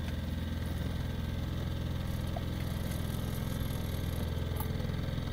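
Fishing boat's engine running steadily at low trolling speed, a low even drone.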